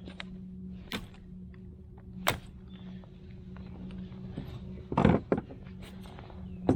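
Knocks and thuds against a plastic fishing kayak: two sharp clicks in the first half, then a cluster of heavier knocks about five seconds in and another near the end, over a steady low hum.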